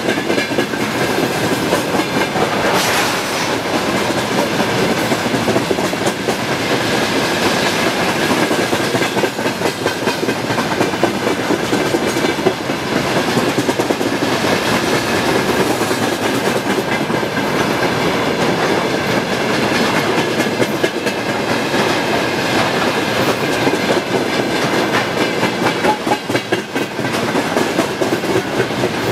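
A freight train of railway tank cars rolling past, its wheels clattering steadily over the rail joints.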